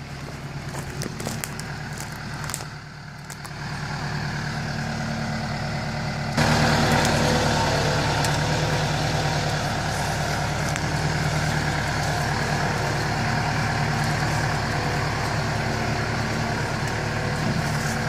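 LS 47-horsepower compact tractor with loader and backhoe driving slowly, its diesel engine running steadily. About six seconds in the engine suddenly becomes louder and stays so.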